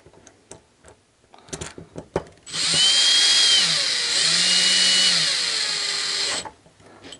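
Cordless drill-driver tightening the centre screw of a 1/5-scale RC pull starter, after a few light handling clicks. It runs for about four seconds from a little past two seconds in, its whine dipping and picking up again midway, then stops.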